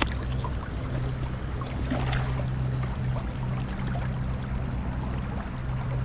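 Shallow river water running steadily over a rocky bed, with a brief louder splash about two seconds in.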